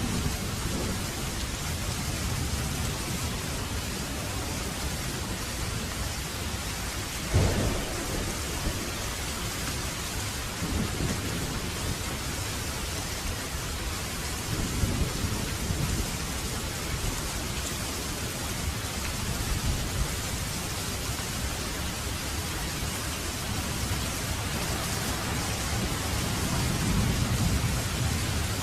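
Steady rain falling, with low rumbles of thunder swelling several times; the sharpest, a short low clap, comes about seven seconds in, and a longer rumble builds near the end.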